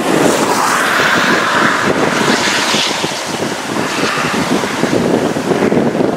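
Strong wind buffeting the microphone, with a louder rushing swell about one to three seconds in.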